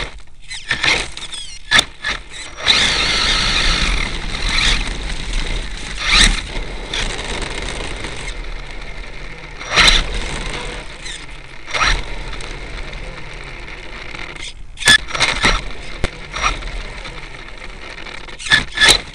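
An HPI E-Firestorm Flux electric RC monster truck driving hard over rough ground, heard from its onboard camera: a steady rush of tyres and wind, louder from about three to eight seconds in, with sharp knocks and clatters from bumps, jumps and landings, several bunched around the middle and near the end. A rattle from the broken front wheel hub runs through it.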